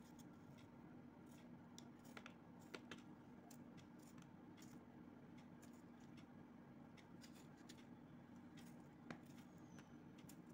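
Faint, irregular clicks and snips of a small kitchen knife cutting a tomato held in the hand, over a low steady hum.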